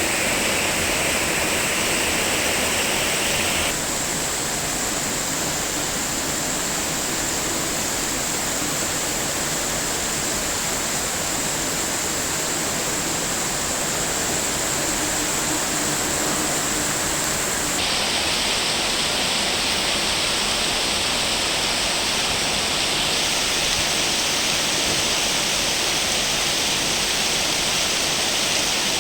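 Heavy rain pouring down, a steady rushing noise of rain and running water. Its tone shifts abruptly about 4 seconds in and again about 18 seconds in.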